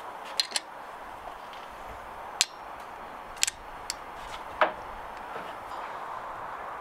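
Kitchen work during cooking: a few short, sharp clicks and taps of utensils, about six in all and spread unevenly, over a steady hiss.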